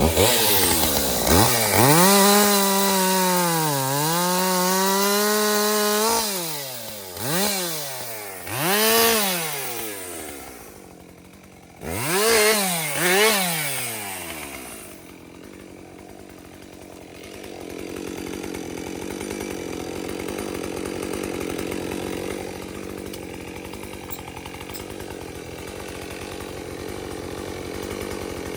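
Chainsaw running at full throttle, its revs sagging once under load, then cut back and revved up in several short blips before dying down. A quieter steady noise fills the rest.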